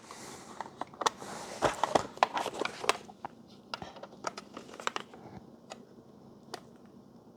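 A run of light clicks and taps, thickest in the first three seconds and sparser after, with a soft hiss near the start: hands working a benchtop pneumatic dispenser controller and its 24 V power plug to power it up.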